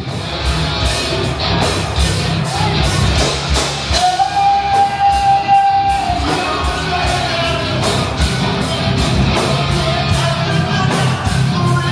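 A live rock band playing: a steady drum beat of about four hits a second over bass and electric guitar, with one long held note, from the singer or lead guitar, from about four to six seconds in.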